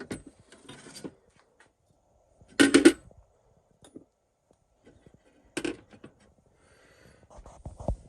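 Handling noise from metal tools: a few short clanks and knocks. The loudest comes about three seconds in, a smaller one follows a few seconds later, and low knocks come near the end.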